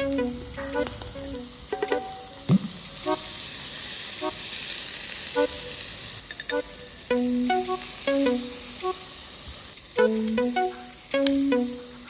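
Pork belly sizzling on an electric grill plate, a steady hiss that swells about three seconds in and fades out later, under plucked guitar background music.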